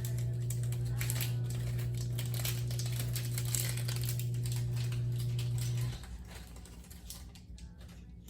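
Small clicks and rustling as snap clips for hair extensions are handled, over a steady low hum that cuts off suddenly about six seconds in.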